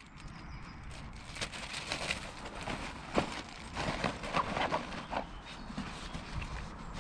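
Gear being packed into a hiking backpack: fabric rustling with irregular knocks and clicks of items being handled, the sharpest about three seconds in.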